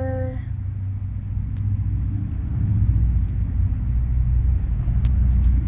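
A low rumble that swells about two seconds in and then stays loud.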